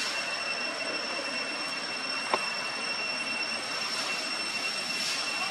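Steady high-pitched insect drone over an even hiss of ambient noise, with a single sharp click about two seconds in.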